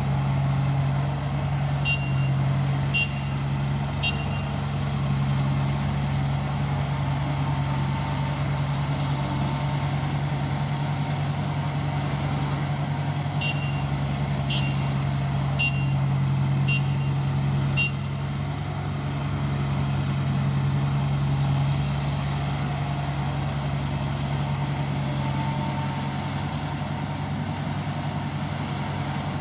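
ISEKI 325 rice harvester's engine running steadily while it cuts rice. Its warning buzzer beeps about once a second, three times early on and five times near the middle.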